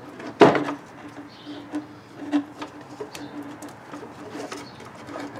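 Plastic split wire loom being worked around a wire bundle by hand: scattered clicks and rustles, with one louder snap about half a second in, as the wires are forced into the tight loom. A faint steady hum runs underneath.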